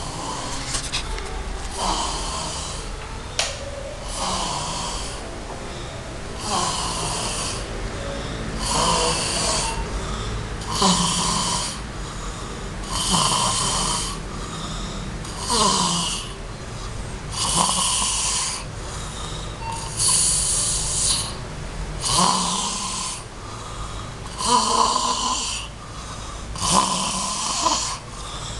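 A man snoring loudly in his sleep, with about a dozen regular snoring breaths, one every two seconds or so.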